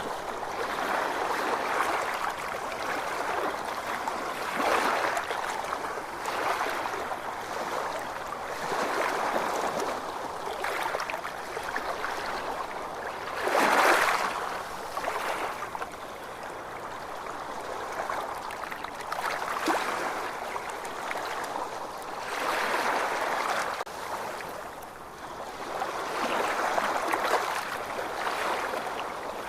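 Ocean waves washing ashore, swelling and ebbing every few seconds, with one louder surge about halfway through.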